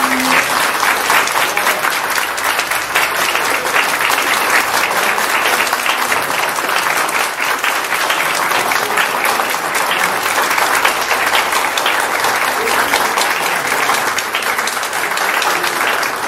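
Audience applauding: a long, steady round of clapping from many hands.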